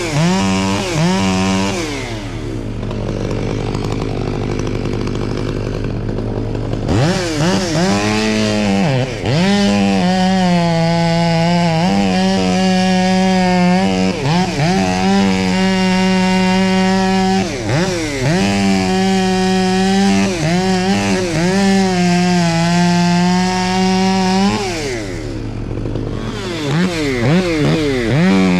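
Two-stroke chainsaw revved up and down while cutting wood. It drops back to a low idle for a few seconds early on, then runs at full throttle with brief dips in pitch as the chain bites, falls back again near the end and revs up once more.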